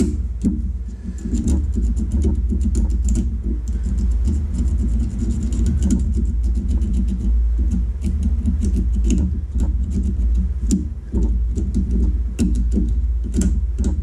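Air compressor running with a steady low drone, under many small scratches and clicks of a metal pick scraping gunk from between the contacts of a seatbelt-buckle microswitch.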